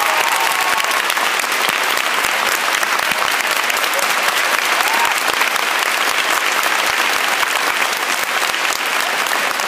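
Theatre audience applauding: dense, steady clapping from a large crowd.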